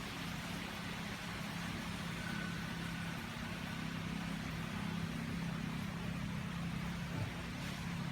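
A steady engine-like hum, low and even, over a constant hiss of background noise, with a faint high tone for about a second near the start.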